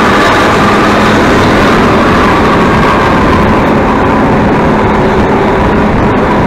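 Tour bus running steadily on the road, its engine and road noise making a loud, even drone with no change.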